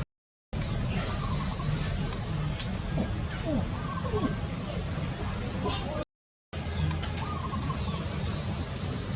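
Birds chirping in short high notes, bunched in the middle, over a steady low rumble. The sound cuts out completely for half a second at the start and again about six seconds in.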